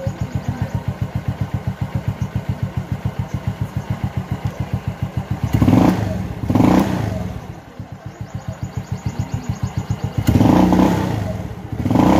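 Yamaha Mio Soulty scooter's single-cylinder four-stroke engine idling with an even beat of about seven pulses a second, its idle speed just turned down at the carburetor's idle screw. The throttle is blipped twice around six seconds in and revved up again about ten seconds in.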